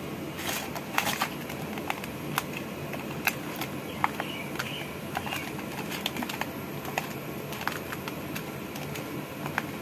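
Small fish being mixed by hand with spice powders in a stainless steel bowl: irregular sharp clicks and taps against the bowl, with wet squishing, over steady background noise.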